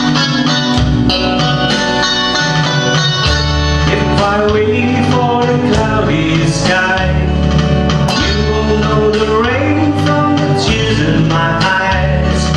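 A man singing a slow country-pop song to his own acoustic guitar, with a steady bass line underneath. The first few seconds are instrumental, and the voice comes in about four seconds in.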